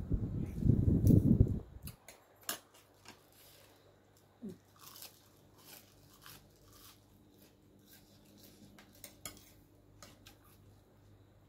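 Close-miked chewing and biting of a spicy instant-noodle salad: loud, thick mouth noise for the first two seconds, then quieter chewing with scattered short crunches and light clicks of a fork and spoon in the plate.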